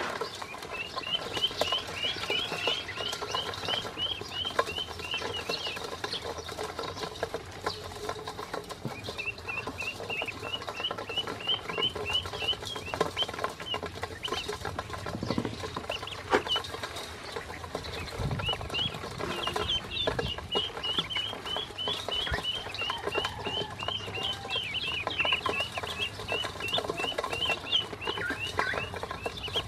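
Ducklings peeping in long runs of short, high chirps, about four or five a second, while their bills peck and click against a stainless steel bowl as they eat feed.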